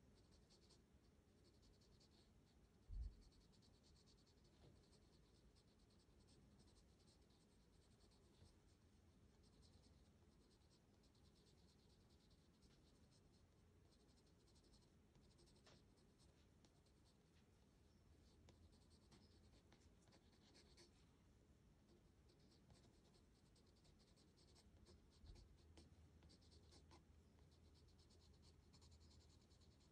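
Graphite pencil shading on sketchbook paper: faint, irregular scratching of short strokes. About three seconds in there is one brief low thump.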